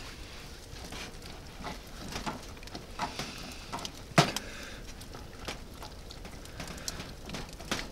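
A fork stirring soup in a metal camping pot, with scattered clinks and scrapes against the pot, the loudest about four seconds in, over a faint steady hiss.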